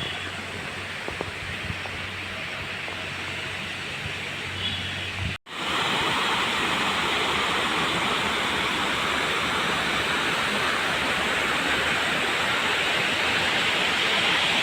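Waterfall: steady rushing of falling water, fainter at first, then much louder and closer after a sudden cut about five seconds in.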